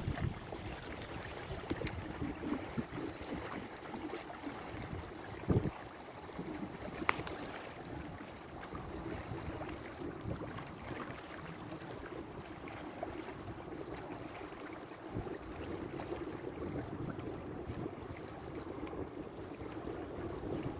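Water washing along a sailboat's hull as it moves under sail, a steady, uneven rush. Two short knocks sound about five and a half and seven seconds in.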